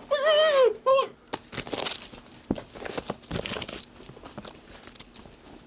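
A brief voice in the first second, then a run of crinkling, rustling noise full of small clicks and crackles that thins out near the end.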